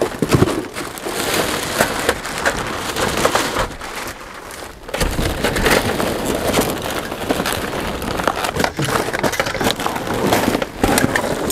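Rummaging through trash in a dumpster: irregular rustling, crinkling and knocking of bags, boxes and discarded objects being handled, with a quieter moment about four seconds in.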